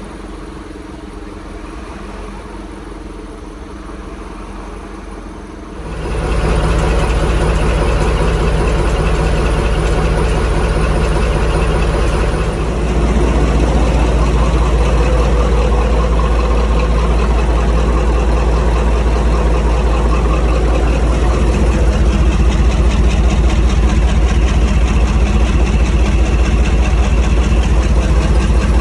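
Maybach MD870 V16 diesel engine of a Class 35 'Hymek' locomotive idling steadily. It becomes markedly louder about six seconds in and again around thirteen seconds.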